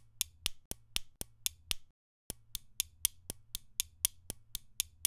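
Sampled pen clicks and snaps played by a MIDI arpeggiator through a sampler: an even pattern of short, sharp clicks at about four a second in eighth notes, with the hits varying in loudness. There is a brief pause about two seconds in, then the pattern starts again.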